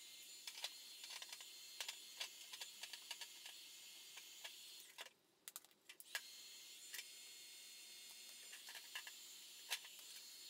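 Near silence: faint room tone with scattered small clicks and ticks.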